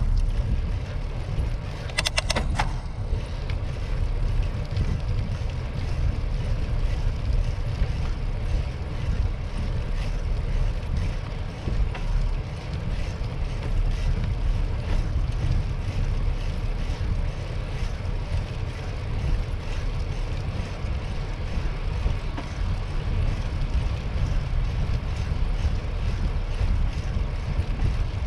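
Wind buffeting the microphone of a camera on a moving bicycle, a steady low rushing, with tyre noise on the pavement underneath. A brief cluster of sharp clicks comes about two seconds in.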